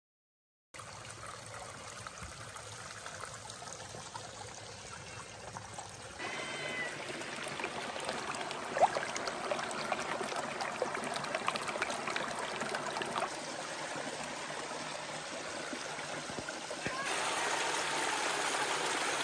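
Small waterfall and mountain stream running steadily over rocks, with a cat meowing briefly near the end.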